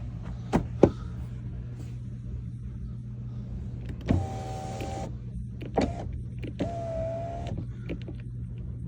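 Two sharp clicks, then an electric door motor on a 2015 Tesla Model S whines steadily for about a second, twice, with a click between the runs. The door electrics are working again after tension was taken off a stretched wiring harness.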